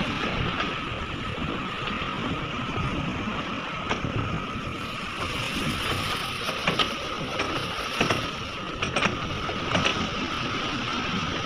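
A large hydraulic excavator's engine and hydraulics running steadily with a constant whine, broken by several sharp metallic clanks in the second half.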